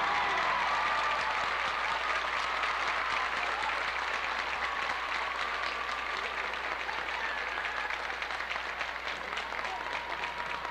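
Audience applauding and cheering, dense clapping with a few shouts and whoops over it, easing off slightly toward the end.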